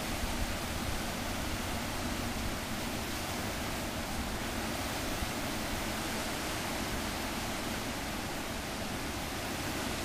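Steady rushing of the Lachine Rapids on the St. Lawrence River, whitewater breaking over large standing waves; an even, unbroken noise.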